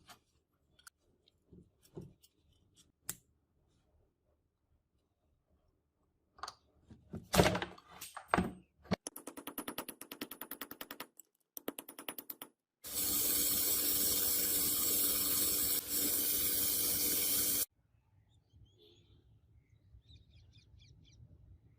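Workshop tool sounds: a few taps and knocks, then a fast, even rattle of clicks for a few seconds, then a power tool running steadily for about five seconds before it cuts off.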